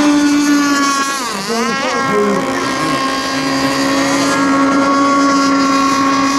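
Several RC racing boats running flat out, their motors making a steady, high-pitched drone of overlapping tones. A bit over a second in, the pitch of one dips sharply and climbs back as a boat sweeps close past.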